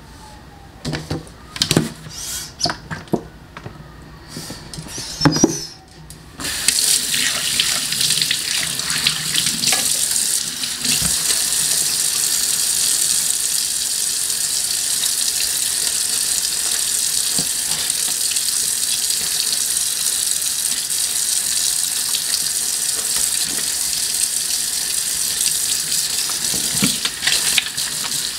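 A few knocks in the stainless steel kitchen sink, then about six seconds in the tap is turned on and water runs steadily into the sink, splashing over hands and a sponge as the sink is scrubbed.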